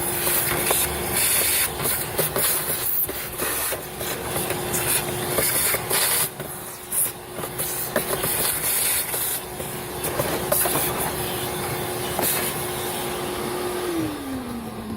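Vacuum cleaner running with a steady whine and hiss as it sucks up dirt and leaves, with frequent short clicks and knocks from the nozzle and debris. Near the end it is switched off and its whine falls away as the motor spins down.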